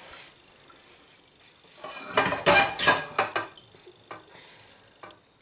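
Pots and metal kitchenware being handled: quiet at first, then a loud clatter of knocks and scrapes about two seconds in, followed by a few lighter clicks.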